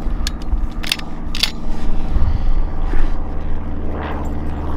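Small single-engine propeller plane droning steadily overhead. A few sharp clicks come in the first second and a half.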